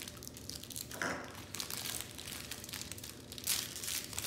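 Thin pink wrapping being crinkled and pulled apart by hand in quick, irregular crackles, densest near the end.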